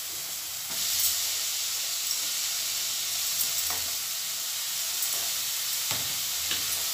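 Tomato masala frying in ghee in a kadhai, sizzling steadily; the sizzle gets louder about a second in as chopped spinach is tipped into the hot pan, with a couple of light knocks later.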